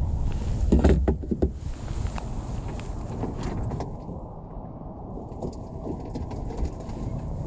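Wind rumbling on the microphone, with scattered knocks and clatter of handling on the kayak, loudest in the first second and a half and again from about five and a half to seven seconds in.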